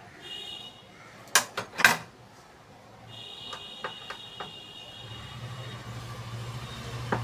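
Two sharp clicks from gas stove burner parts being handled and fitted back, with a few lighter ticks after. A steady low hum comes in about five seconds in.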